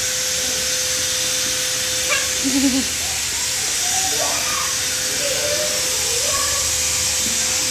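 Artificial snow machine blowing fake snow: a steady hiss of blown air over an even motor hum.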